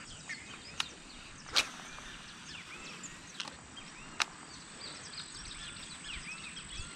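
Outdoor pond-side ambience: many small birds chirping and a steady high insect drone. Four sharp clicks stand out over it, the loudest about a second and a half in.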